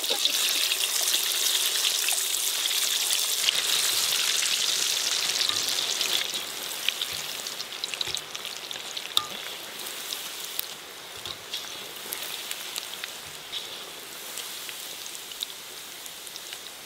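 Battered murrel fish pakoda pieces deep-frying in hot oil in a kadhai: a steady sizzle with scattered crackling pops. The sizzle is louder for about the first six seconds as fresh battered pieces go in, then drops lower.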